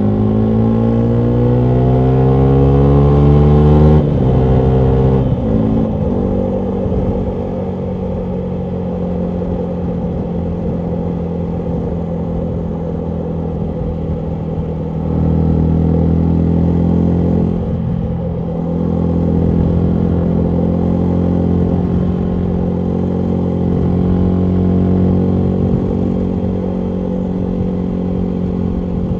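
2019 Yamaha MT125's single-cylinder four-stroke engine running through a full Akrapovic exhaust under way. Its pitch climbs as it accelerates, drops sharply about four seconds in, then holds a roughly steady cruising note with small rises and falls.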